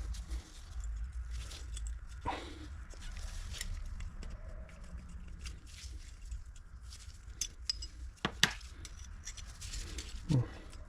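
Small metal clicks and taps from a steel cam and its small coil spring being worked by hand, with one sharper click about eight seconds in, over a steady low hum.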